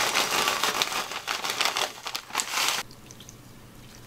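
Plastic cereal bag crinkling as small frosted shredded-wheat biscuits are poured into a ceramic bowl. It stops abruptly a little under three seconds in, leaving a faint low hum.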